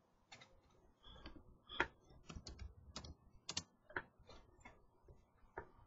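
Typing on a computer keyboard: a dozen or so sharp, irregularly spaced key clicks, as a web address is entered.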